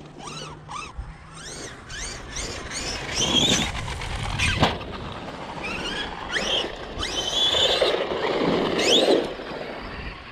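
Electric RC basher trucks' brushless motors whining, rising and falling in pitch again and again as the throttle is blipped and released. A thump about halfway through, like the truck landing or hitting something.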